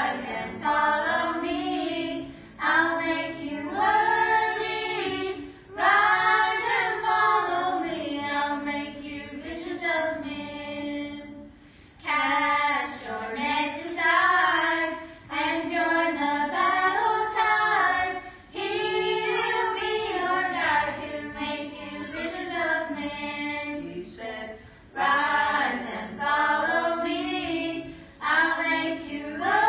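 A group of children singing a worship song together. The singing comes in phrases of a few seconds with short breaths between them, and no instruments stand out.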